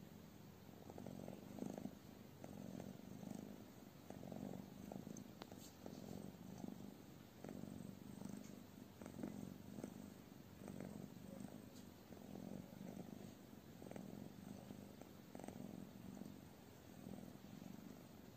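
Ginger cat purring close up, a low steady rumble that swells and fades with each breath, about once a second.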